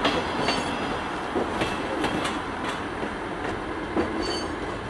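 Diesel multiple unit running over pointwork: a steady rumble with wheels clicking over the rail joints and crossings, and brief faint squeals from the wheels.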